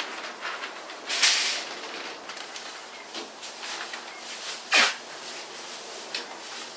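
Masking paper and plastic sheeting crinkling and rustling, with two louder short, sharp hissing rips about a second and nearly five seconds in.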